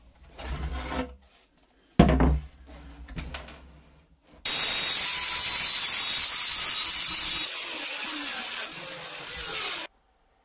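A cordless drill driving screws into plywood: it runs loud and steady for about five seconds, easing off in steps near the end before it stops. Before that, a sharp knock and some rubbing as the clamps are handled.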